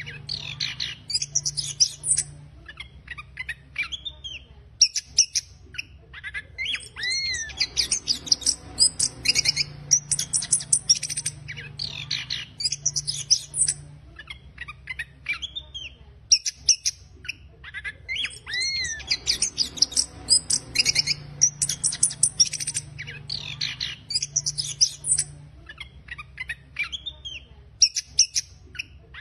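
Chestnut-capped thrush (anis kembang) singing its rough chattering 'ngeriwik' song: phrases of rapid, high twittering notes mixed with short down-slurred whistles, each a few seconds long with brief pauses between them, over a faint low hum.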